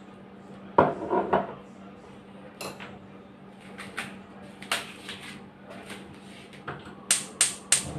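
A clatter of kitchenware about a second in and a few light knocks, then a run of sharp clicks, about three a second, near the end: a gas stove's spark igniter being clicked to light the burner under the wok.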